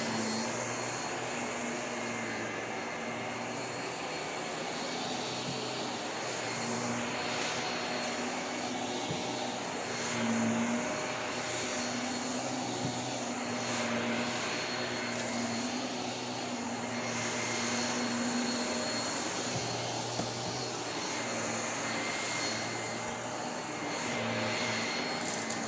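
Vacuum cleaner running steadily, its motor humming under a rushing hiss that swells and eases every couple of seconds as it is pushed back and forth.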